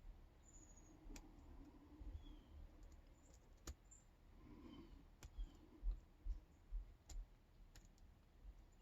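Faint, scattered clicks of a hook pick working the pins inside a Yale K300 padlock, with a few soft low bumps from the lock being handled in the second half.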